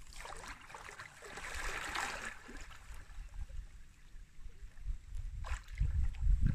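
Lake water splashing and sloshing as a person slides in and swims off, strongest in the first few seconds, then softer lapping with low rumbling bumps near the end.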